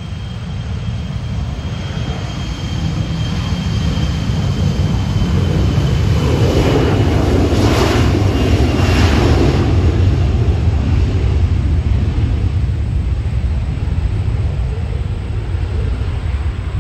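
Jet airliner's engines passing by, the noise swelling to a peak about halfway through and slowly fading, with a thin whine that slowly falls in pitch.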